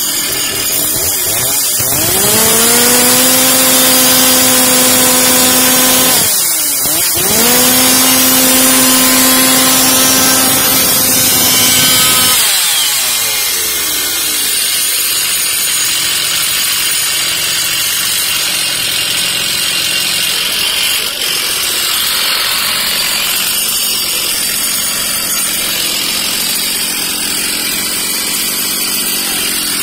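Stihl MS660 chainsaw's single-cylinder two-stroke engine revved up to full throttle twice. Each rev lasts about four to five seconds, with the pitch climbing and then holding steady, and a brief drop between the two. After about twelve seconds it falls back to idle and keeps idling steadily.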